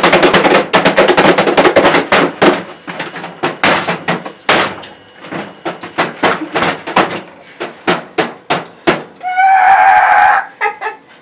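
A scuffle of rapid banging and knocking, fast and dense at first, then thinning to scattered bangs, with a short yell about nine seconds in.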